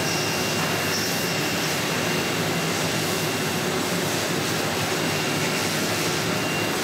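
Steady rushing noise of running machinery, with a thin constant high whine and a low hum underneath.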